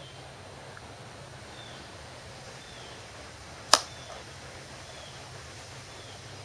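A single sharp click a little under four seconds in, over a steady low hum and hiss. Faint, short, high chirps recur about once a second.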